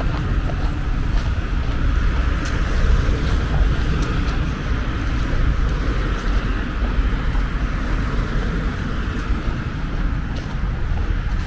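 Steady road traffic noise, with a constant low rumble underneath.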